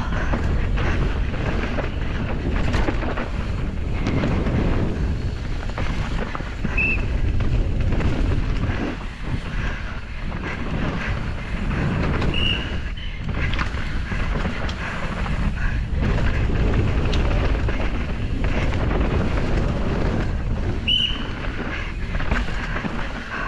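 Wind buffeting the microphone over a steady low rumble with clattering, and a few brief high squeaks.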